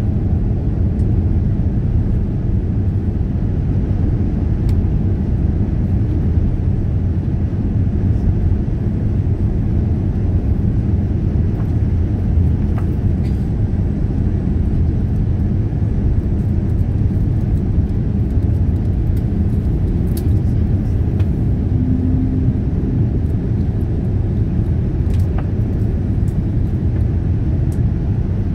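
Steady low roar of a Boeing 787-9 airliner in flight, heard inside the cabin: engine and airflow noise.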